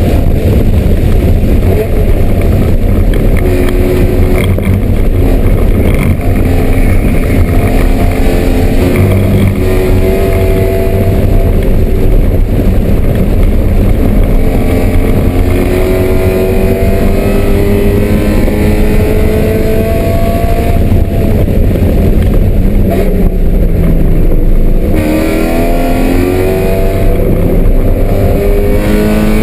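BMW M3 race car engine at full throttle. Its pitch climbs through the gears and drops back at each upshift, and the climbs come faster near the end.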